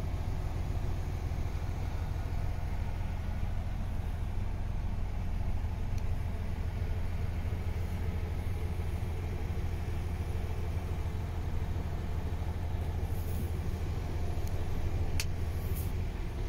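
MAN TGS 26.460 truck's six-cylinder diesel engine idling steadily, heard from inside the cab as an even low rumble. Two light clicks near the end.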